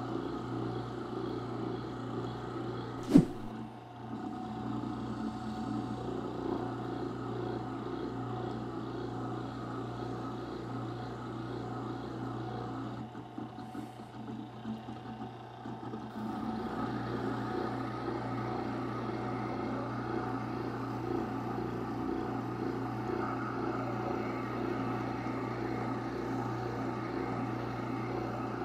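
Rikon 8-inch wet sharpener's motor running with a steady hum while a kitchen knife edge is honed against its leather strop wheel. There is one sharp click about three seconds in.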